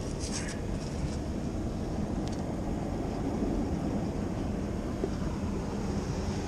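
Steady low outdoor rumble, with a few faint light clicks in the first half-second and again about two seconds in.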